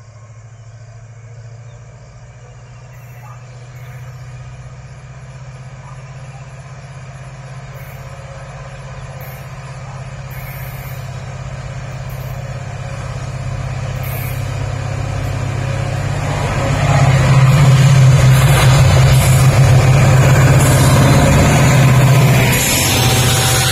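WDP4D diesel-electric locomotive with a 16-cylinder two-stroke EMD engine, working under power as it accelerates, with a steady low engine note growing steadily louder as it approaches and loudest as it passes close by; near the end the level dips slightly as the locomotive goes by and the coaches follow.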